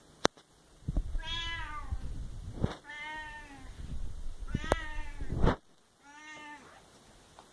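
Domestic cat meowing insistently: three long, loud meows about a second apart and a fainter fourth, the kind of calling its owner calls shouting. A sharp click comes just before the first meow.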